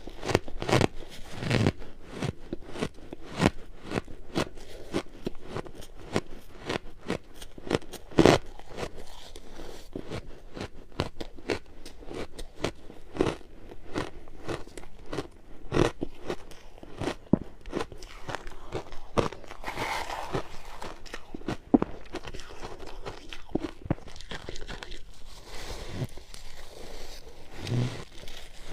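Purple-coloured ice being bitten and chewed close to the microphone: a steady run of sharp, irregular crunches and cracks, the loudest about eight seconds in.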